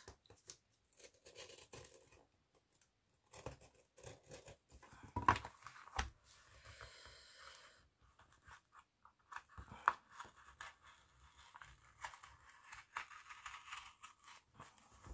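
Craft knife scraping and slicing along the spine of a thin children's picture book, cutting its pages apart, with paper rustling and crackling in short irregular spells and a few sharp clicks.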